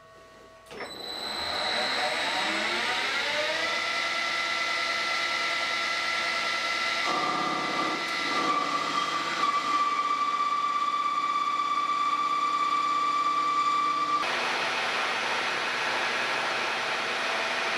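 Metal lathe starting up, its whine rising in pitch for about three seconds as the chuck comes up to speed, then running steadily with a steady tone joining about seven seconds in. About fourteen seconds in the sound changes abruptly to a milling machine running as it drills into a steel block.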